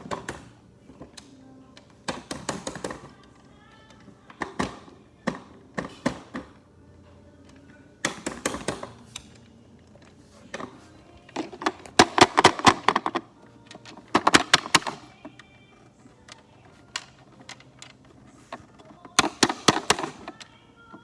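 Battery-powered toy police car's speaker playing its sound effects in short, broken bursts with pauses between them, along with clicks from its buttons. The sound keeps cutting out because of poor contact at the battery terminals.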